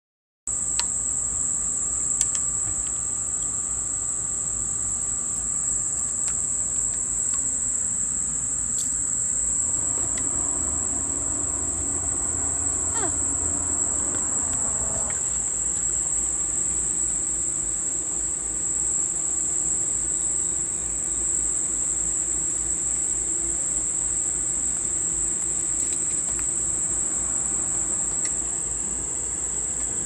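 Insect chorus: one steady, high-pitched drone that holds without a break.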